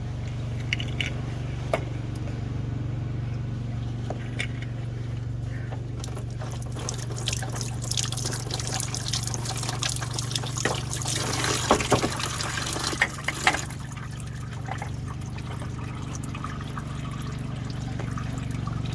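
Pink engine coolant pouring and splashing out as the coolant filter comes off a DT466 diesel, heaviest from about six to fourteen seconds in, with a few clicks and knocks of the filter being handled. A steady low hum runs underneath.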